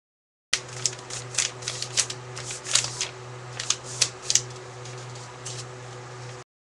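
A sheet of paper rustling and crackling in the hands as it is folded and creased into a paper airplane, with a quick run of sharp crinkles over the first few seconds that thins out, over a steady low electrical hum.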